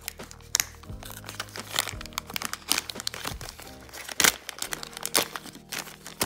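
Clear plastic zip bag crinkling and crackling irregularly as hands open it and handle the bicycle seat clamps inside, over background music with a steady bass line.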